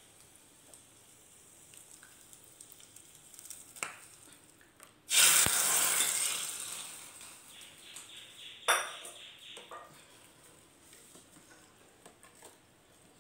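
Hot butter-fried bread cubes tipped from a ladle into a pot of soup: a sudden sizzle about five seconds in that fades away over a couple of seconds, followed near nine seconds by a short metal knock of the ladle.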